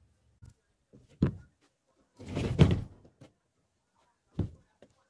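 A few dull thumps and knocks: a sharp one just over a second in, a longer, heavier one around two and a half seconds that is the loudest, and a smaller one a little after four seconds.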